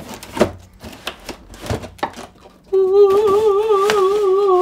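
Cardboard packaging clicking and rustling as a box is opened. About two and a half seconds in, a single loud held note with a steady wobble in pitch, like a voice humming or singing, takes over.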